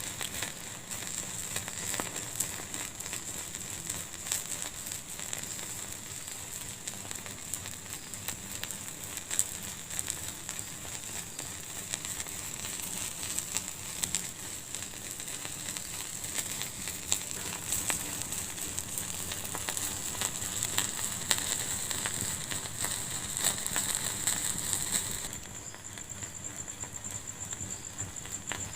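Wood fire burning in a fireplace, crackling and popping with many small irregular snaps over a steady hiss. Near the end the hiss suddenly drops quieter while the crackles go on.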